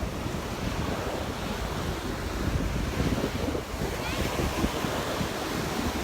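Gulf surf washing onto the beach, with wind buffeting the microphone in a steady low rumble.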